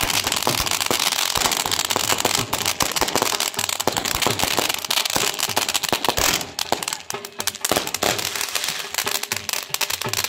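Ground fountain fireworks spraying sparks: a steady hiss packed with rapid crackling pops and sharper bangs, easing briefly about seven seconds in before picking up again.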